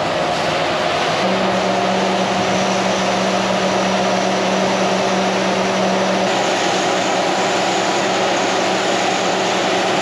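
Combine harvester and tractor running steadily as the combine's unloading auger pours shelled corn into a grain cart. Under the drone a steady hum comes up about a second in and eases off about six seconds in.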